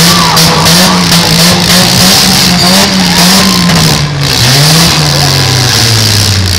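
Demolition derby cars' engines revving hard. One loud engine rises and falls in pitch again and again, then settles to a lower, steadier note near the end, over a constant hiss of other engines and spinning tyres.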